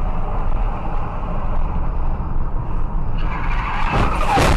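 Steady car road and engine noise heard from inside the cabin. About three seconds in, a hiss of tyres skidding under hard braking joins it, with a sharp bang near the end.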